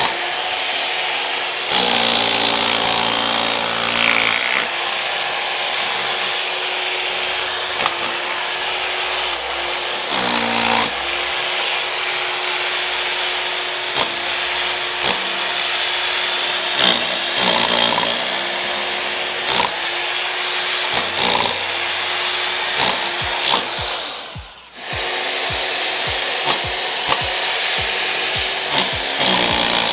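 INGCO RH10508 1050-watt rotary hammer in hammer-only (chisel) mode, its flat chisel rapidly hammering and chipping a groove into a plastered brick wall. The hammering runs steadily, stops for a moment about 24 seconds in, then starts again.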